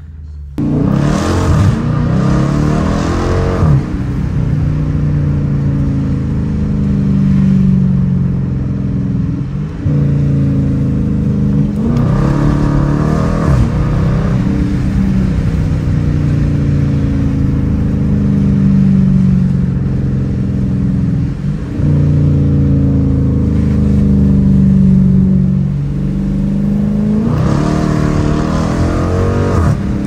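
Dodge Challenger R/T's 5.7-litre Hemi V8 accelerating hard, heard from inside the cabin. The engine note climbs and then drops back several times as it shifts up through the gears.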